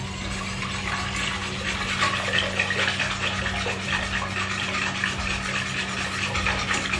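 Metal wire whisk beating pudding powder and sugar into liquid in a stainless steel pot: a fast, continuous swishing and scraping of the wires through the liquid and against the pot.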